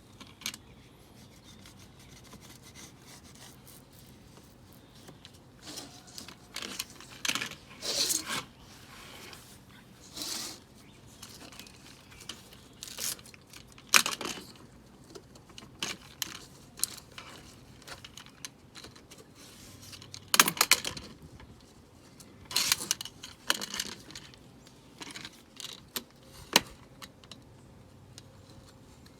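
Hand work on a window screen frame: irregular clicks, taps and short scrapes as the rubber spline is pressed into the frame's groove and the mesh is stretched.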